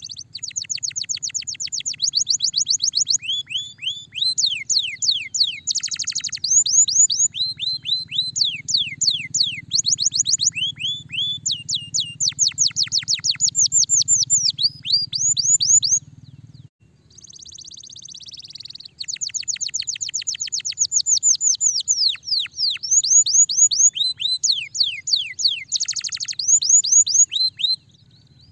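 Canary singing: fast runs of falling whistled notes, many a second, strung into long trills, with a short break and a brief rasping phrase a little past halfway.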